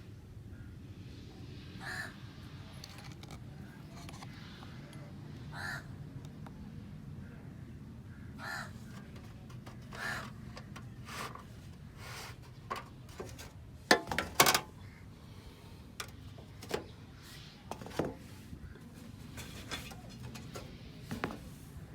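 Crows cawing repeatedly over the steady low hum of a running ceiling fan, with a couple of sharp knocks about midway.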